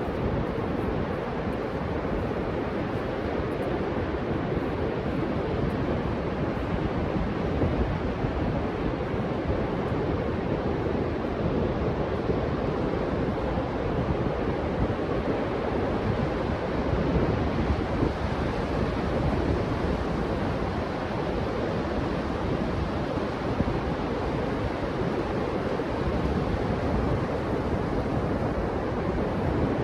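Ocean surf breaking and washing onto a sandy beach, with wind on the microphone: a steady rush of noise.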